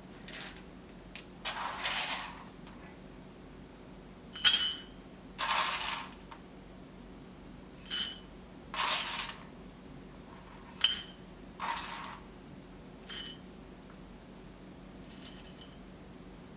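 Small hard objects clinking, about four times, each clink ringing briefly like metal or ceramic. Between them come short rustling, scraping sounds, as of espresso-making tools being handled.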